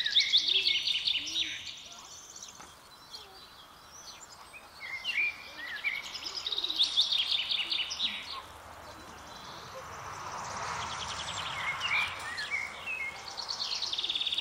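A songbird singing in three bursts of rapid trills and short chirps: one at the start, one from about five seconds in, and one near the end. A soft hiss rises for a couple of seconds after the middle.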